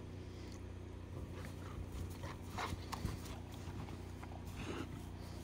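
A Saint Bernard moving through deep snow: irregular crunching steps and snuffles as it pushes its nose into the snow, starting about a second and a half in, over a steady low hum.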